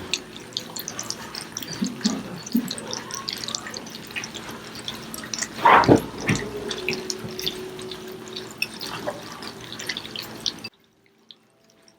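Four-week-old German Shepherd puppies lapping and chewing food from bowls: a dense run of small wet clicks and smacks, with one brief louder noise about halfway through. The sound cuts off abruptly shortly before the end.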